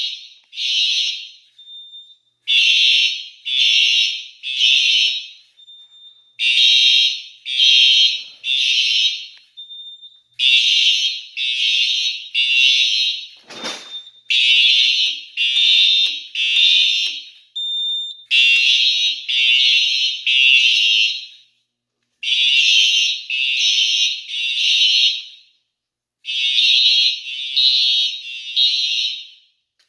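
Fire alarm horns sounding in the temporal-three evacuation pattern: three short buzzing blasts, then a pause, repeating every four seconds. The panel has been put into manual evacuation. One sharp knock comes about fourteen seconds in.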